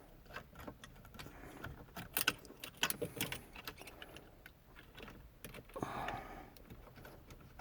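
Plastic wiring connectors on the back of a factory truck radio being worked loose by hand: scattered small clicks and rattles, busiest in the middle, with a soft rustle near the end.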